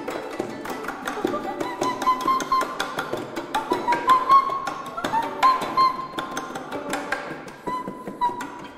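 Free improvised music from violin, accordion and a woman's voice: many quick taps and clicks mixed with plucked and bowed notes, and several held high notes that come and go.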